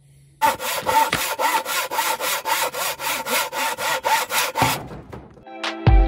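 Hand saw cutting through wood in quick, even strokes, several a second, stopping about four and a half seconds in; a thump near the end.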